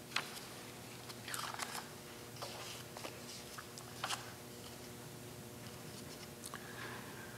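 Faint rustling of paper and a few soft clicks as pages and a folder are handled, with a longer rustle about a second and a half in, over a steady low hum.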